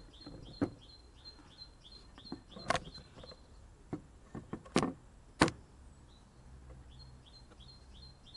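Cut and polished rock slabs being flipped over and set down on a wooden board, knocking against the wood four times, the louder knocks in the middle. A small bird calls in the background with a quick run of high chirps during the first few seconds and again near the end.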